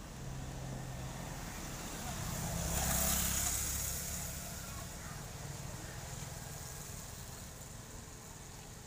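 A motor vehicle driving past, its engine and tyre noise building to a peak about three seconds in and then fading away.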